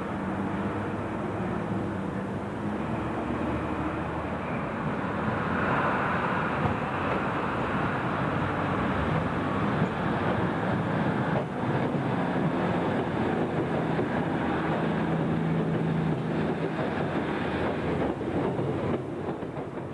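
Passenger multiple-unit trains running into a station platform: first an electric multiple unit drawing in, then a diesel multiple unit rolling past close by, its underfloor engines running and its wheels sounding on the rails. It grows louder about a quarter of the way in, with a few sharp clicks later on.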